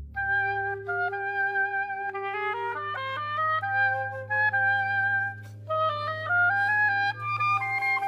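Oboe playing a solo melody of held and moving notes, with a short break for breath about five and a half seconds in, over a steady low held note in the accompaniment.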